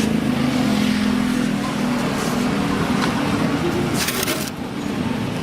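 A steady motor hum that fades after about two and a half seconds, with a short hiss about four seconds in.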